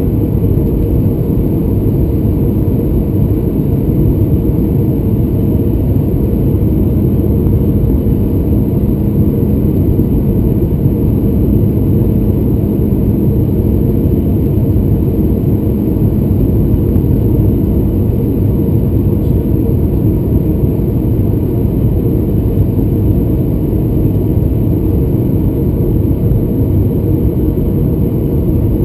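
Steady low rumble of a Boeing 737-800's CFM56-7B jet engines and the airflow over the airframe, heard inside the passenger cabin during the final approach to landing.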